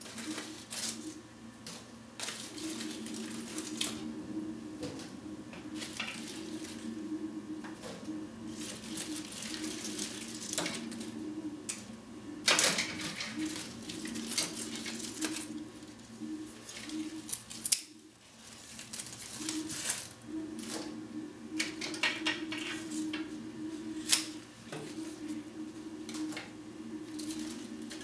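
Scissors snipping back terrarium plants: irregular sharp snips and clicks, a few much louder than the rest, over a steady low hum.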